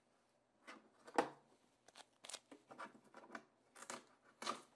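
Shipping tape being peeled off the plastic inside a Creality CFS filament box, heard as a series of faint rustles and short clicks, with a sharper click about a second in.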